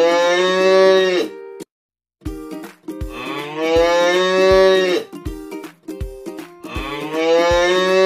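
Cow mooing three times, each a long call that rises in pitch and then eases off. Light background music with a soft, even beat plays under and between the calls, with a brief dropout just before the second moo.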